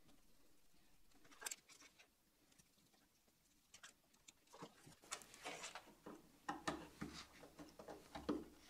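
Faint scattered clicks and light scrapes of a small screwdriver working the screws of a pluggable screw-terminal connector and of wires being handled, with one sharper click about a second and a half in and busier handling in the last few seconds as the wired connector is pressed onto the I/O board.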